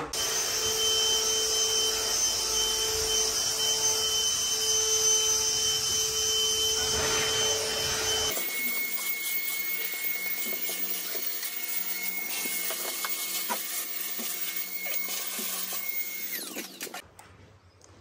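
Cordless drill running steadily. About eight seconds in the sound changes abruptly to a thinner one with a steady high whine, and it stops near the end.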